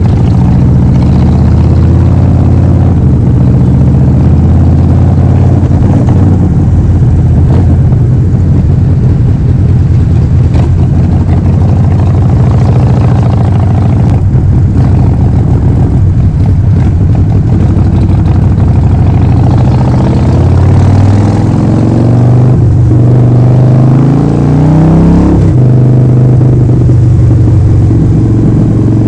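Harley-Davidson Forty-Eight's 1200 cc air-cooled V-twin running loud through a Vance & Hines full exhaust system, under way at a fairly steady speed. About two-thirds through, the engine pulls up in pitch for a few seconds, then drops suddenly at a gear change and settles again.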